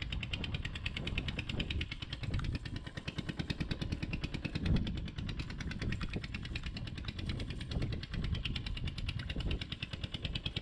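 Small engine running steadily with a rapid, even putter.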